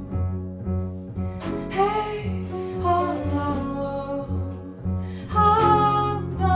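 Small jazz group playing: a woman sings into a microphone over double bass in separate plucked notes, piano and hand percussion, with a few sharp drum or cymbal hits.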